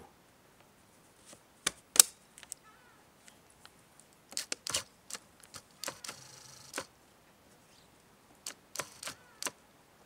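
Sharp mechanical clicks from a Nikon D4 and Nikkor 80-400mm AF-D lens being handled and switched to autofocus, the loudest about two seconds in, picked up by the camera's built-in microphone. About six seconds in, the camera body's screw-drive focus motor whirs briefly as it drives the lens.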